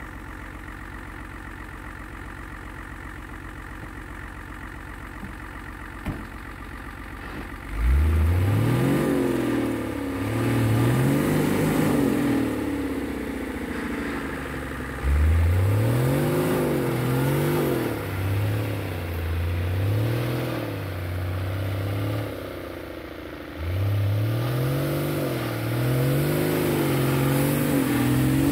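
Nissan Patrol's SD33T six-cylinder turbodiesel idling, then revved hard three times, starting about 8, 15 and 24 seconds in, each time climbing and then wavering as it drives the truck through snow on the rear axle only.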